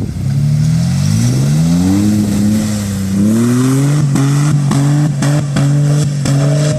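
Jeep Liberty KJ engine revving under load, its pitch climbing over the first couple of seconds, easing, then rising again and holding steady. In the second half a run of sharp clicks or knocks sounds over the engine.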